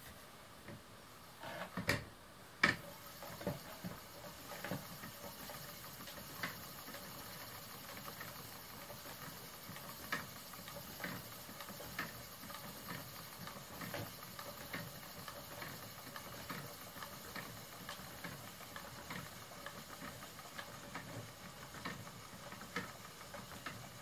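Schacht Matchless spinning wheel being treadled, giving a soft knock about once a second as the wheel turns, with a few louder knocks about two seconds in.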